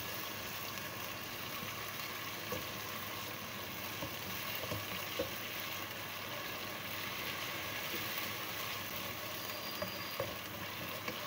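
Ginger-garlic paste sizzling steadily as it fries in hot oil in a non-stick pot. A spatula stirs it, and a few brief ticks come from the spatula scraping and knocking the pan.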